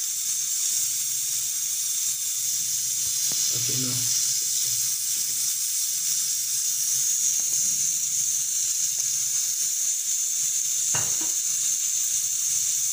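Olive oil heating in a wok on a gas stove, giving a steady, even sizzling hiss.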